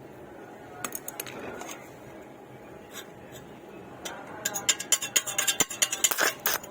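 Stick-welding work on mild steel pipe: sharp, irregular metallic clicks and crackling. A few scattered clicks come about a second in, then the crackling turns dense and loud from about four seconds in.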